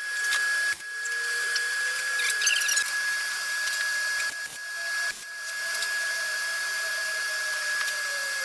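Electric power tool running with a steady high whine and hiss, its motor pitch sagging slightly under load. It cuts out briefly twice.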